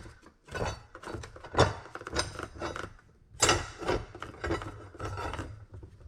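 Lengths of steel rebar clinking and knocking against each other as they are handled, in a dozen or so irregular metallic knocks with short gaps between them.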